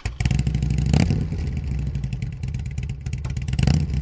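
Motorcycle engine running, with brief revs about a second in and again near the end. It cuts in suddenly at the start.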